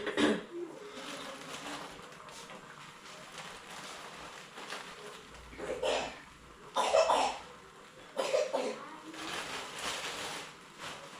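A person coughing in several short bursts: two at the start, then three more about six, seven and eight seconds in.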